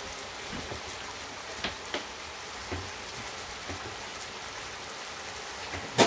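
Steady hissing noise with a few light clicks, and one sharp clack near the end.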